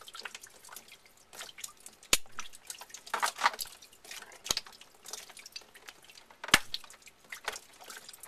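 Water dripping irregularly from a freshly cut PEX hot-water line, with scattered small ticks. Two sharp clicks stand out, about two seconds in and again about six and a half seconds in.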